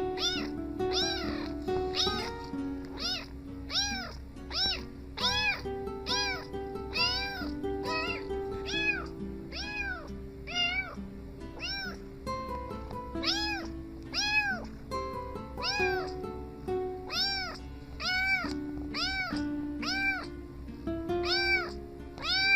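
Cat meows, each rising then falling in pitch, repeated in a steady rhythm of roughly three every two seconds over background music, as if the meows were set to a tune.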